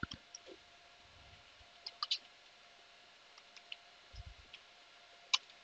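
Faint, irregularly spaced clicks of typing on a computer keyboard, with a faint steady hum underneath.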